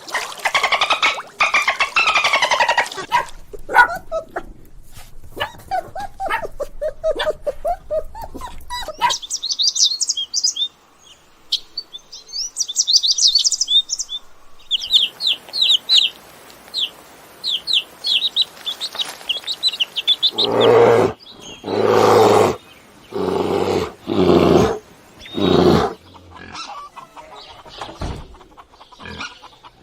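A succession of animal calls. Pitched calls come in the first few seconds, then rapid high bird chirps through the middle, then about six loud, low, evenly spaced calls near the end.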